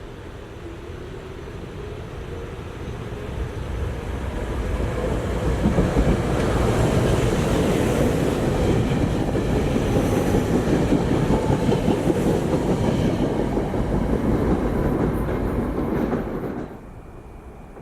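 SEPTA Regional Rail electric train passing at speed, its wheels running over the rails. The sound builds over about five seconds, holds loud and steady, then cuts off abruptly about a second before the end.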